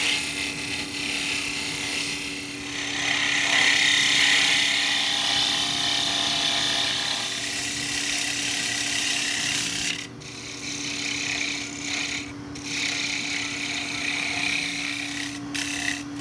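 Wood lathe running with a steady motor hum while a hand-held turning tool cuts the spinning wooden bottle form, giving a loud hissing, rasping cutting sound. The cutting noise breaks off briefly a few times in the later part.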